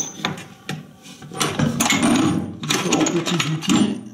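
Steel lathe tool holders being handled and set down on a wooden bench: a sharp click of metal on wood at the start, then a stretch of rustling and clinking handling noise.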